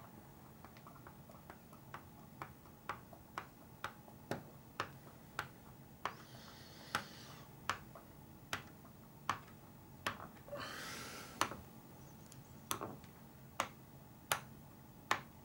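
Sharp small clicks from hand-tool work on small RC parts, about one to two a second and growing louder, as a pillow ball screw is driven into the plastic steering rack. Two short scraping rustles come around the middle.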